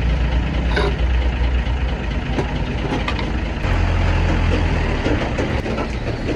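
Heavy truck engine running with a steady low rumble, which swells louder for a second or two past the middle, with a few light clicks and knocks.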